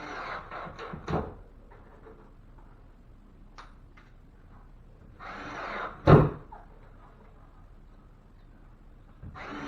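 Wood backing and tools being handled: short scraping, rustling spells with sharp knocks, the loudest a heavy knock about six seconds in.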